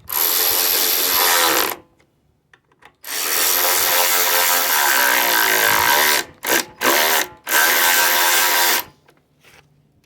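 Electric drill running in several bursts, its motor pitch sagging and rising as it drives in the fasteners of the engine's air filter housing: a run of about two seconds, a pause, a longer run, two quick blips, then a final run.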